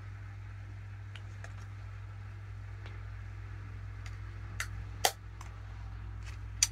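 Makeup items being handled and put down on a table: a few short, sharp clicks and taps, the loudest about five seconds in, over a steady low hum.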